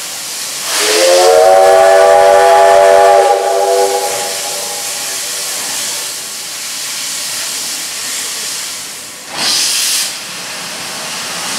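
Er-class 0-10-0 steam locomotive hissing steam and giving one long, loud blast on its multi-tone steam whistle, about two and a half seconds at full strength before it fades away. This is the departure signal. Near the end comes a short, louder burst of escaping steam.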